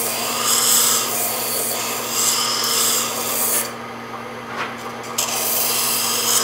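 Sandpaper-lined curved sanding block rubbed against a walnut sphere spinning on a wood lathe: a steady scratchy hiss over the lathe's hum. The rubbing lets up for about a second and a half past the middle, then resumes. It is taking chalk off the sphere's high points to mark where it is out of round.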